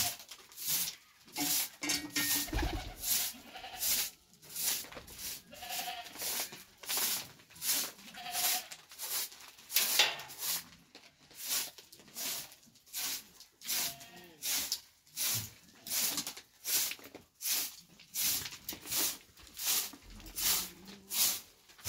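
Short straw hand broom sweeping a dusty concrete yard in quick, even strokes, about one and a half a second. A young goat bleats briefly a few times between the strokes.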